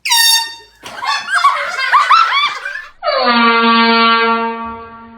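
An air horn sounds one long, steady, loud note from about three seconds in, fading out near the end. Before it come high-pitched voices crying out in short rising and falling shrieks.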